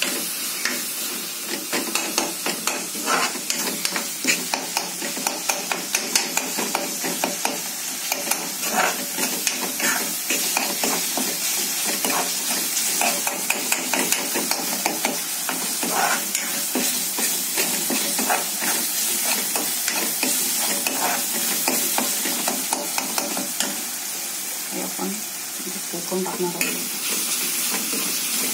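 Steel spatula stirring and scraping through a tomato-onion masala in a black coated kadhai, with many quick scrapes and taps against the pan over a steady frying sizzle. The masala is being cooked down on low gas until the tomatoes mash completely.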